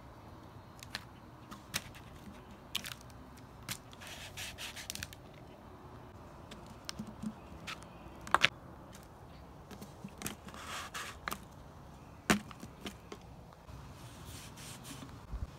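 Handling taps and scraping from a plastic bottle and a drink can being dabbed into paint on a paper plate and pressed onto cardboard: scattered sharp clicks, with short stretches of rubbing. The loudest are a quick double tap a little past the middle and a single tap a few seconds later.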